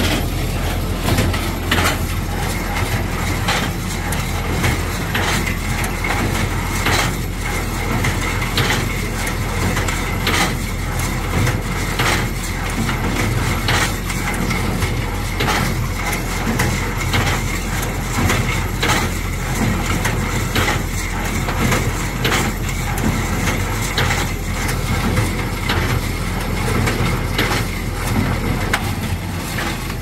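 New Holland 67 Hayliner square baler running off an LS tractor, its plunger knocking in a steady, even rhythm as hay is fed through, over the tractor's steady diesel engine.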